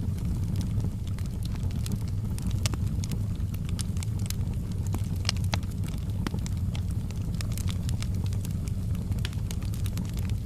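Wood fire burning in a fireplace: a steady low rumble of flames under frequent, irregular sharp crackles and pops.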